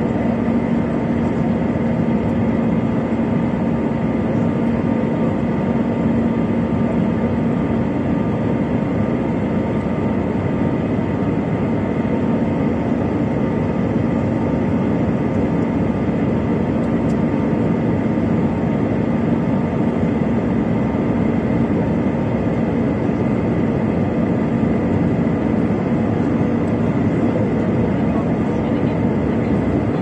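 Jet airliner cabin noise heard from a window seat over the wing: the turbofan engines' steady drone and the rush of air past the fuselage, with a low hum and a faint higher whine that hold steady throughout.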